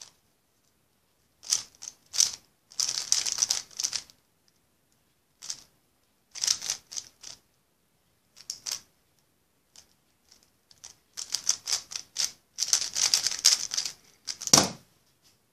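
Plastic 3x3 speedcube turned fast during a speed solve of about fifteen seconds: bursts of rapid clacking turns separated by short pauses, with a single louder thump near the end.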